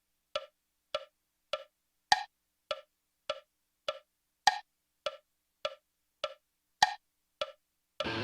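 Metronome click track counting in at about 100 beats a minute, every fourth click accented and higher-pitched, marking bars of four before the band enters. The music starts near the end.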